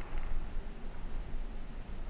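Wind buffeting a helmet-mounted camera's microphone while a road bike rolls along asphalt: a steady low rumble and hiss that rises and falls with the gusts.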